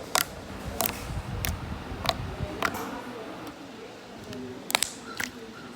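Thick slime being squeezed and pressed in the hands, giving a series of sharp clicks and pops at irregular intervals, about one every half second to a second, with a pause in the middle.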